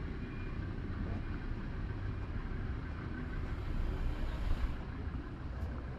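Street ambience beside a harbour: a steady low rumble of road traffic, swelling briefly as a vehicle passes near the end.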